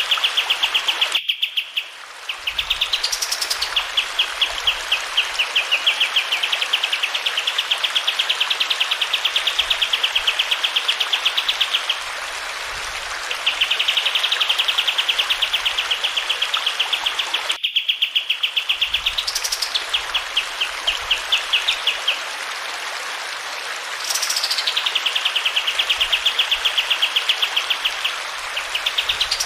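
A kapas tembak songbird singing long, fast trills of rapidly repeated high notes, several phrases opening with a quick high sweep, over the steady hiss of running water. The recording cuts out abruptly for a moment twice, where the loop is spliced.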